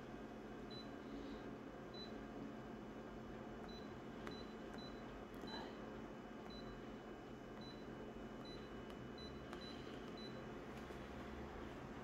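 Short high key-press beeps from a photocopier's touchscreen, about a dozen at uneven intervals as the zoom settings are tapped in, over a faint steady hum.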